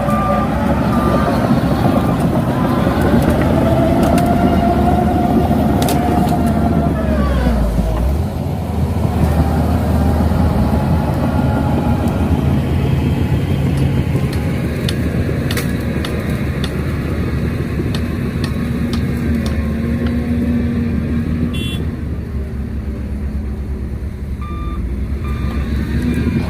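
Shantui DH17C2 crawler bulldozer running under load as it pushes, its whine sliding up and down in pitch over the first several seconds. Its reversing alarm beeps briefly near the start and again near the end, and a few sharp cracks sound in between.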